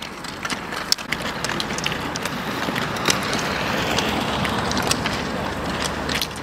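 Roller skis rolling on asphalt: a steady rolling hiss with scattered sharp clicks of pole tips and wheels striking the pavement.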